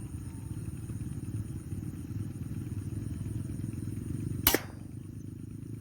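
A single sharp shot from an air rifle, about four and a half seconds in, over a steady low rumble.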